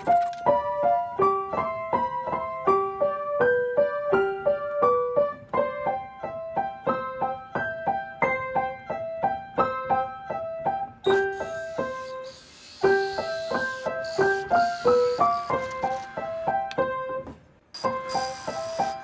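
Background piano music: a light melody of quick notes. From about halfway through, a hiss runs beneath it.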